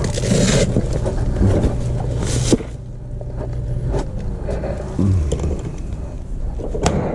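Steady low machine hum with rustling and handling noises; the hum cuts off abruptly about two and a half seconds in, leaving a quieter stretch with a few sharp clicks.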